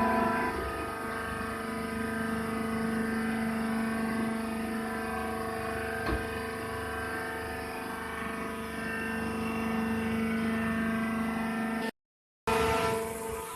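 SHDB38 hydraulic wood chip baler running: a steady pitched drone from its motor and hydraulic pump, with a single click about six seconds in. The sound cuts out for about half a second near the end.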